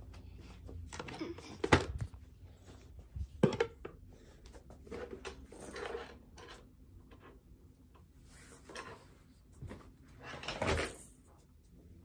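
A few sharp knocks and thuds from objects being handled, the two loudest in the first few seconds, with a longer rustling scrape near the end.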